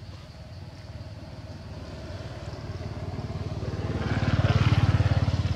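A motor vehicle's engine running with a steady throb, growing louder to a peak about four and a half seconds in and starting to fade near the end, as if passing close by.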